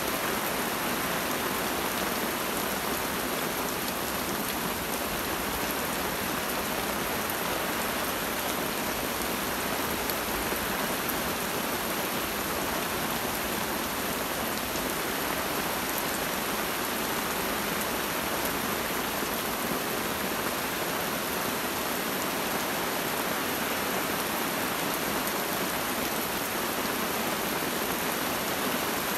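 Steady rain falling on forest. It makes an even, unbroken hiss with no thunder.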